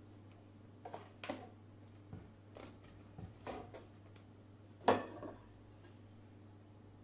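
A clear plastic coffee-grounds container being handled and tipped out: a few light knocks and clicks, the sharpest about five seconds in, over a faint steady hum.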